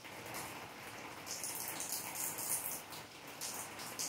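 Steady rain falling on wet pavement and rooftops: a continuous hiss of drops that swells and fades unevenly.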